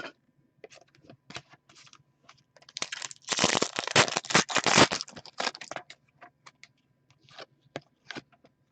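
Trading-card pack wrapper being handled and torn open, with scattered crinkles and clicks and a dense tearing, rustling stretch of about three seconds in the middle.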